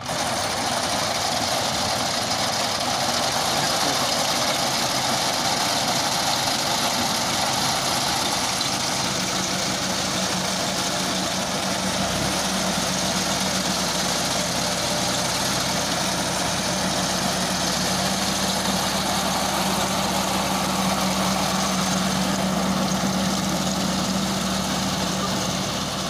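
John Deere 5050D tractor's diesel engine running steadily as it drives a front-mounted paddy reaper, its cutters and toothed conveyor working through standing rice. A steady low hum comes in about ten seconds in.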